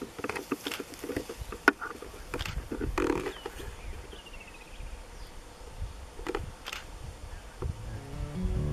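Open-air ambience: scattered light clicks and knocks over a low rumble, with a short run of high chirps about three and a half seconds in. Acoustic guitar music fades in near the end.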